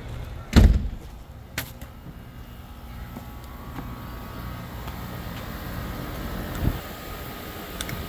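A door thuds shut about half a second in. Then a heat pump's outdoor unit runs in heat mode with a steady low hum from its compressor and condenser fan.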